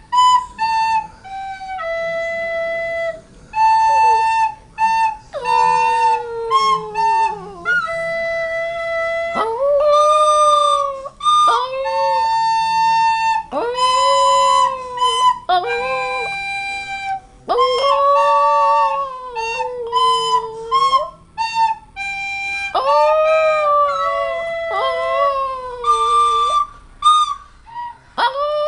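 A flute playing a simple tune in short held notes while a dog howls along, its long wavering howls sliding up and down in pitch over and between the notes.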